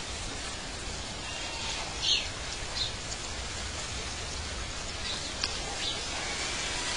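Outdoor nature ambience: a steady hiss with four short, high bird chirps, the loudest about two seconds in and two more near the end.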